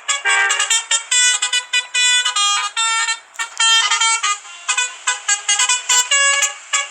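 Basuri "telolet" multi-tone bus horn playing a fast tune: short horn notes follow one another in quick succession, often sounding two or more tones together, with a brief pause about three seconds in.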